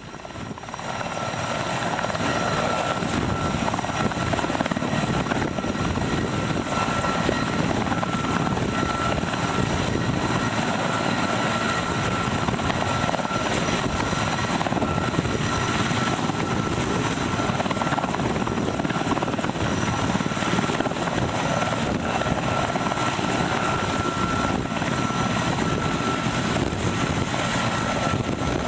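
Sikorsky S-64 heavy-lift helicopter hovering close while it takes on a 2,000-gallon load of fire gel. Its rotor and turbines make a loud, steady noise with a constant high whine, building up about a second in and then holding level.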